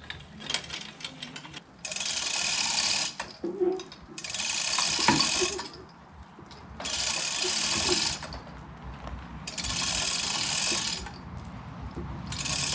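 Hand chain hoist on an A-frame gantry being worked by its hand chain, lifting the front of a car body. It goes in repeated bursts of about a second and a half each, four times with a fifth beginning near the end.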